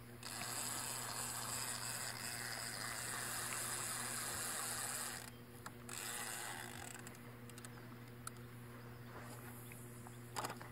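Diamond Reel Micro II 301 inner-spool spinning reel being cranked, a rattling gear whir for about five seconds, then shorter spells of winding after a brief pause. A sharp knock near the end.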